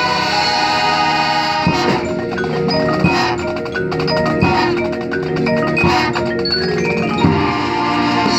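Marching band playing: held chords for about two seconds, then a passage of short, detached notes with mallet percussion and sharp strikes.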